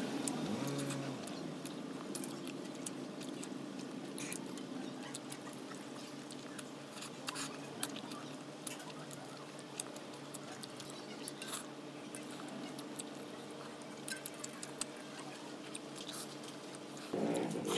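Close-up eating sounds: chewing and lip-smacking on chicken eaten by hand, with many small wet clicks. A louder slurp of noodles comes near the end. A steady low hum runs underneath.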